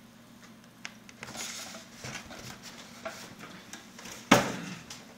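Quiet handling noises on a stone kitchen counter: a few light clicks and short rustling scrapes of packing material, then one sharp knock a little after four seconds in.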